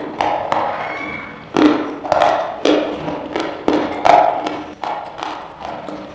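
Close-up crunching as hard, brittle pieces are bitten and chewed, a run of sharp crunches about every half second to a second.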